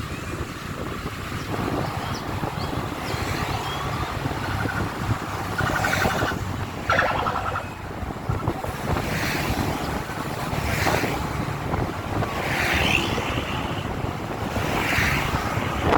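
Steady rumble of a moving motor vehicle, with wind on the microphone and several short higher-pitched sounds breaking in every couple of seconds.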